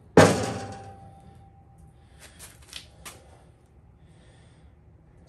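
A single loud metal clank as the Honda CT70 frame is set down onto a 4-inch square steel tube, the steel ringing with one clear tone that fades over about two seconds. A few faint light knocks follow near the middle.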